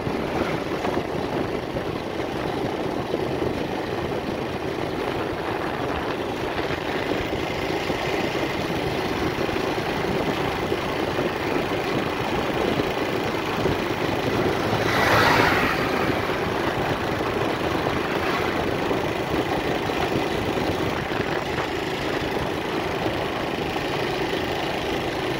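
A vehicle engine running steadily while travelling along a road, with road and wind noise. About fifteen seconds in there is a brief, louder rush of noise lasting about a second.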